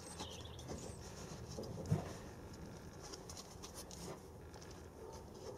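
Faint bird calls in the background over soft rustling of potting compost being pressed into a small plastic plant pot, with one dull knock about two seconds in.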